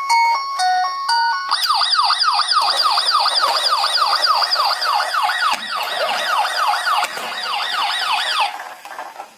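A short electronic tune gives way, about a second and a half in, to a fast repeating siren of about three to four pitch sweeps a second, which fades near the end.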